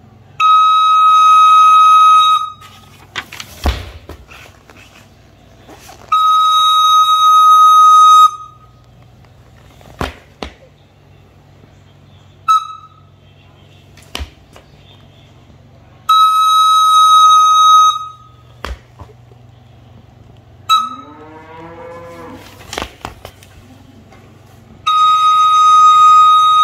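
A recorder sounding one steady high note as jump cues: long notes of about two seconds and two short toots, in the order long, long, short, long, short, long. Between the notes come single thumps of feet landing jumps on a tiled floor.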